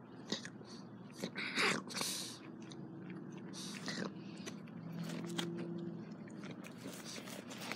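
A dog chewing close to the microphone: irregular crunches and snaps.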